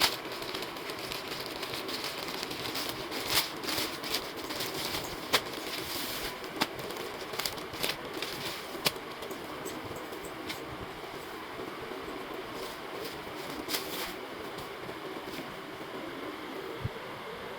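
Packaging being handled: rustling and crinkling, with scattered sharp crackles that thin out after about ten seconds.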